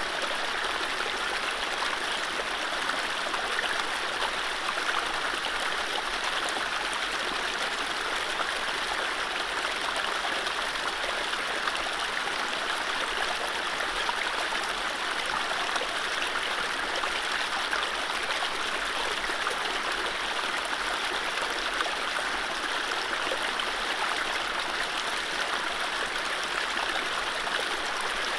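Mountain stream running over low rapids: a steady rush of water with fine trickling and gurgling, no birdsong.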